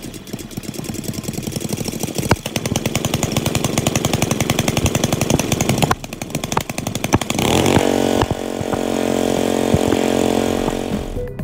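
Small gasoline engine of a 2800 psi gas-powered pressure washer running with a rapid, uneven putter. After a short break about six seconds in, it revs up and settles into a steady, higher hum.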